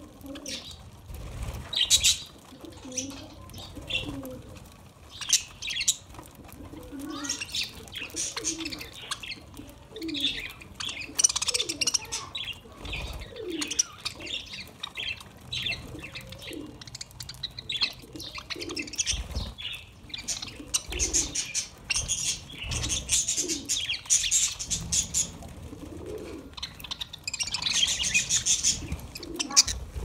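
A flock of budgerigars chirping and chattering busily while feeding, with wings flapping now and then as birds fly in. Short, low, cooing calls run underneath the chatter.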